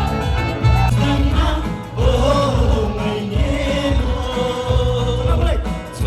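Music with a wavering sung melody over a heavy, pulsing bass.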